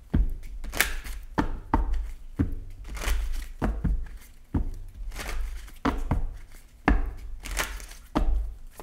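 A tarot deck being shuffled by hand: irregular quick slaps and rustles of cards, several a second, mixed with dull thumps of the deck against the hands or table.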